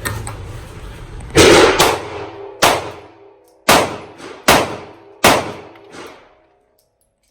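Pistol firing six shots at an uneven pace, the first two close together, each shot followed by an echoing tail.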